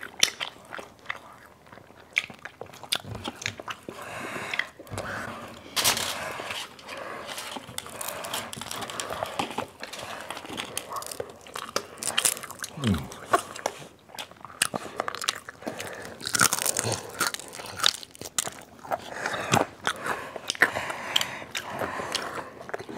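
Close-miked biting and chewing of crispy fried chicken, the crust crunching and crackling in many irregular snaps.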